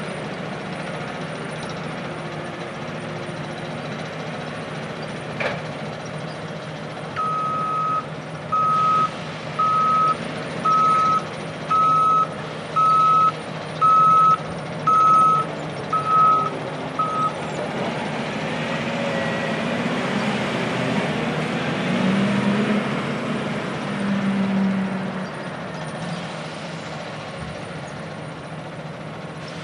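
Mining haul trucks and processing plant machinery running with a steady low drone, while a truck's reversing alarm beeps about ten times, roughly once a second, starting about seven seconds in. Later an engine swells louder for a few seconds, then settles back.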